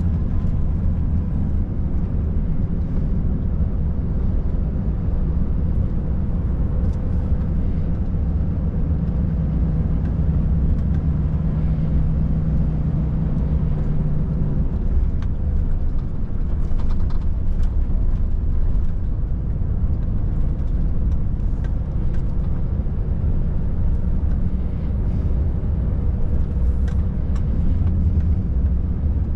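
Volvo FH540 truck's 13-litre inline-six diesel engine and road noise heard from inside the cab: a steady low drone, its engine note growing stronger for a few seconds near the middle.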